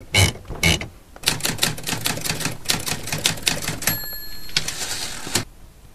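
Typewriter sound effect: two heavy key strikes, then a fast run of key clacks, a bell ring about four seconds in, and a last sliding rush that cuts off suddenly.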